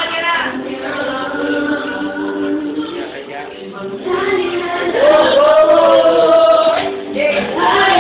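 Singing with music: long held notes, and a melody that slides up and down around five to seven seconds in.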